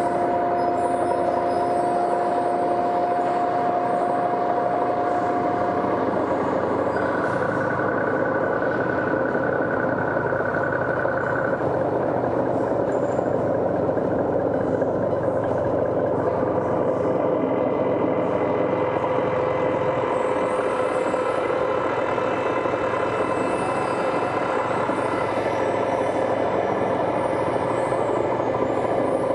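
Experimental noise-drone music: a dense, steady wall of rumbling noise layered with held tones that enter and drop out, one high tone cutting off about six seconds in and another sounding for a few seconds soon after.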